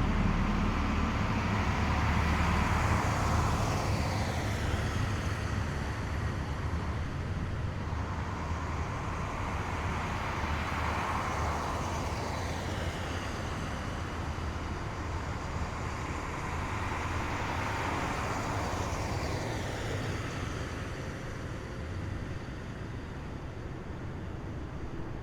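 Column of heavy military vehicles driving past one after another. Each pass comes as a swell of engine and tyre noise that builds and falls away, three in turn about eight seconds apart, over a low rumble that slowly fades.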